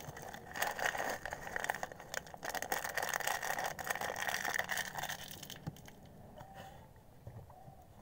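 Crinkling and crackling of a plastic snack packet being shaken and squeezed as snack pieces are emptied out of it; the crinkling stops about six seconds in.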